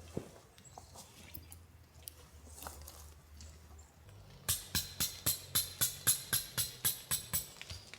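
Faint scattered clicks, then about halfway in a quick regular run of about a dozen sharp scraping strokes, about four a second, that stops shortly before the end.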